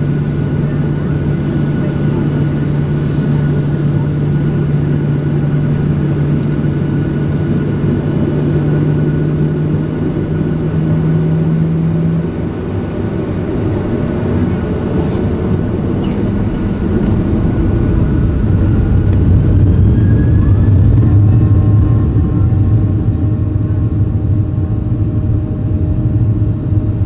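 Cabin noise in a Boeing 737-700 waiting and taxiing for takeoff: a steady rumble of its CFM56 turbofans and cabin air. A low steady hum stops about halfway through; later the engine noise grows a little louder and new steady tones come in.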